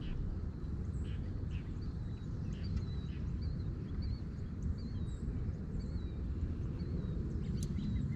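A bird calling over and over in short, wavering high notes, about one a second, over a steady low rumble.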